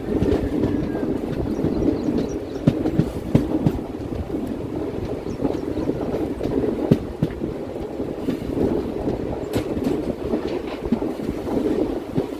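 Passenger train running, heard from the open door of one of its coaches: a steady rumble of wheels on track, with a few sharp clacks as the wheels pass over rail joints.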